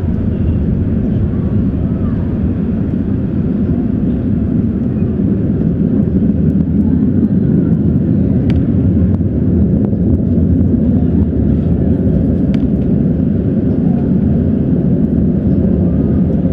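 Antares rocket's first-stage engines rumbling during ascent: a steady deep roar that grows a little louder partway through, with a couple of faint sharp clicks.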